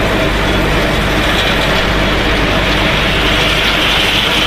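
Snack pellet extrusion line machinery (extruder, cutter and conveyors) running with a loud, steady mechanical noise.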